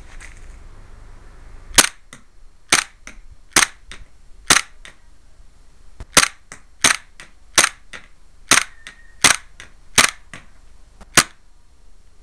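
Tokyo Marui Glock G26 Advance gas blowback airsoft pistol firing about eleven single shots at a steady, unhurried pace, with a short pause after the first four. Each sharp crack is followed a fraction of a second later by a fainter tick.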